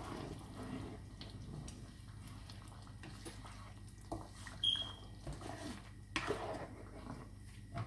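Spatula stirring a thick fermented fish-and-rice sauce (buro) simmering in a frying pan, with quiet wet stirring and a few scattered knocks and scrapes against the pan about four to six seconds in.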